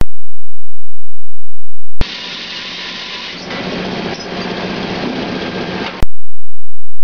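Onion peeling machine running: a dense, even hiss-like machine noise over a steady low hum. It switches in abruptly about two seconds in, lasts about four seconds, and cuts off just as suddenly with a click, leaving only a faint hum.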